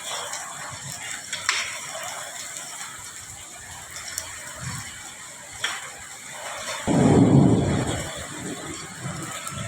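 Rain and hailstones falling: a steady hiss with scattered sharp ticks of hail striking. About seven seconds in, a sudden loud, low rumbling noise comes in and eases off after about a second.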